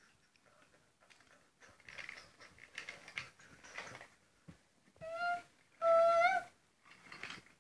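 Wooden toy train pieces clattering and knocking as they are handled on the wooden track. Near the end come two short, high hoots about half a second apart, each bending up slightly at its end; they are the loudest sounds.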